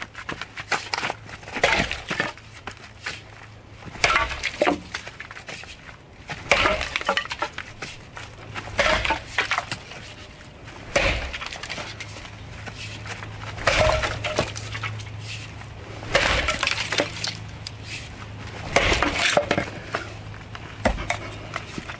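A wood-chipper blade mounted as an axe head chopping into dry, very hard eucalyptus. There are about eight separate sharp impacts, roughly every two and a half seconds.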